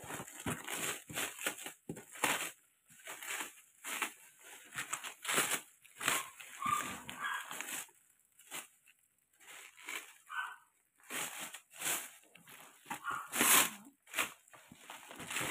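Clear plastic cling wrap crinkling and tearing as it is cut and pulled off a cardboard pastry box, in irregular crackling bursts.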